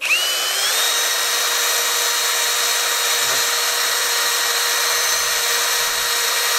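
Cordless SDS-Plus hammer drill switched on and spinning a bit with no load: a whine that rises for under a second, then holds a steady pitch, with no hammering. The bit is being run free to check whether it wobbles, and it runs fairly true.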